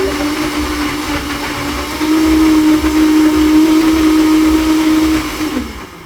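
Electric blender running on bananas, yogurt and ice cream, a steady motor whine that rises slightly about two seconds in, then winds down and stops as it is switched off near the end.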